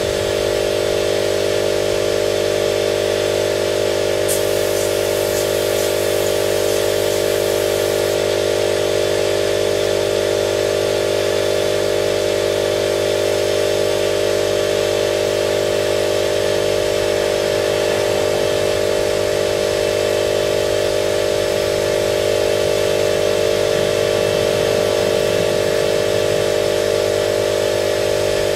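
Spray-painting equipment running steadily: a constant machine drone with a hiss of air over it.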